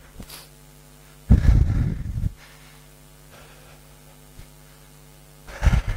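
A heavy exhale blowing straight into a headset microphone, a loud puff of wind noise lasting about a second, with a shorter one just before the end, over a faint steady hum.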